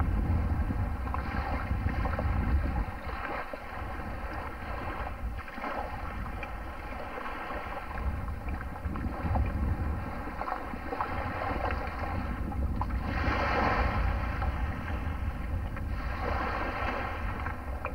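Wind buffeting the microphone, with the steady drone of a distant ski boat's engine as it tows a water skier across the bay.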